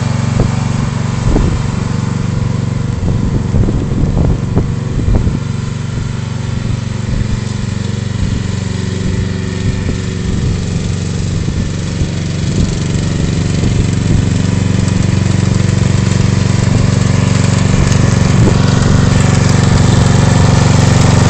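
Ride-on lawn tractor's engine running steadily as the mower drives across the grass, growing louder in the second half as it comes closer. A few brief knocks sound in the first five seconds.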